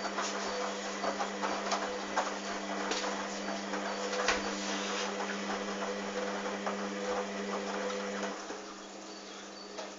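Hoover Dynamic washing machine drum turning: a steady motor hum with water noise and small knocks and rattles from the drum. The hum cuts out and the sound drops a little after eight seconds in, as the drum stops.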